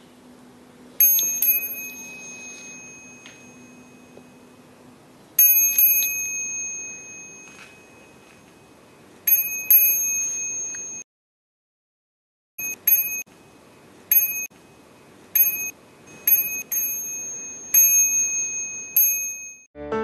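Bicycle bell rung repeatedly: three double rings a few seconds apart, then after a brief cut-out of all sound, a quicker run of single and double rings.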